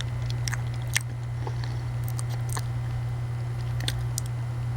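Someone chewing a mouthful of banana, with scattered soft wet mouth clicks and smacks, over a steady low hum.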